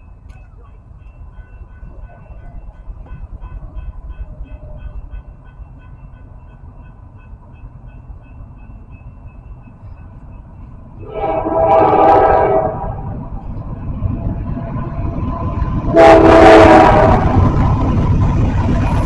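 Approaching diesel freight locomotive sounding its air horn: two long chord blasts, one about eleven seconds in and one about sixteen seconds in, over a rumble that grows louder as the train nears. Before the horn, a faint repeated ringing stops about ten seconds in.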